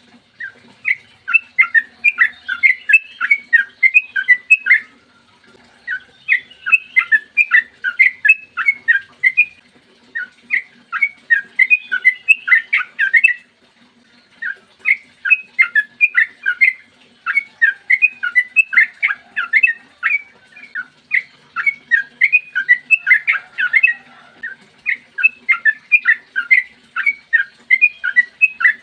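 Yellow-vented bulbul (trucukan) singing long, fast chattering phrases of quick chirped notes, each run lasting several seconds with short pauses between.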